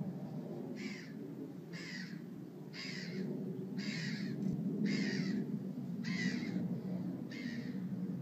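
Bengal kitten meowing over and over, seven short, high, rough-edged meows about a second apart.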